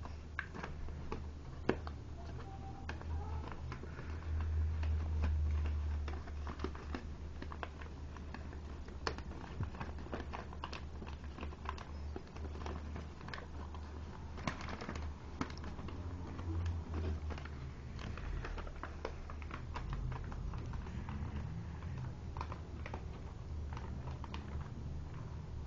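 Paper being folded and creased by hand: scattered, irregular soft crinkles and clicks over a steady low hum.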